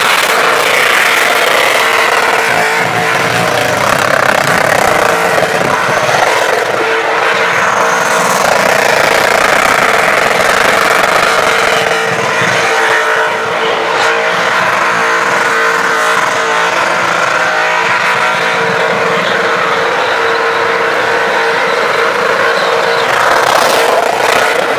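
Supercharged Holden Commodore burnout car's engine held at steady high revs with its tyres spinning, running on without easing off because the accelerator is stuck open.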